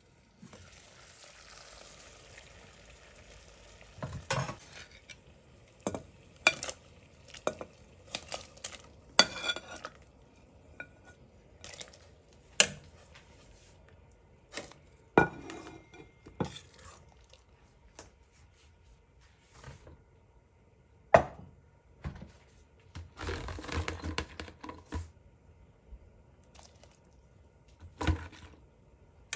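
Soft hiss of water simmering in a stainless steel pot, then a metal ladle stirring the pork and knocking against the pot with many sharp clinks. A burst of splashing about three quarters of the way through as chunks of corn on the cob go into the water.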